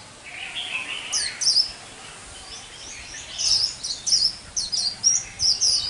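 A newly caught white-eye singing its 'líu xù đầu' song: clusters of short, high, quickly down-slurred notes with gaps between them. The song is still broken and halting, a sign of a wild bird not yet in full form.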